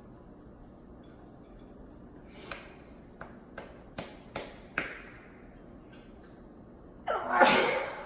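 A woman sneezing once, loudly, about seven seconds in. A couple of seconds in there are several short, sharp sounds, about five in two seconds.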